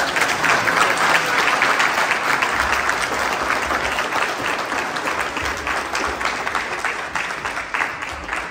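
Audience applauding: many hands clapping in a dense patter that tapers off near the end.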